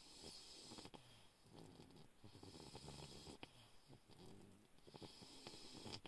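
A sleeping bulldog puppy snoring faintly, with low snores and soft breath hiss over several slow breaths.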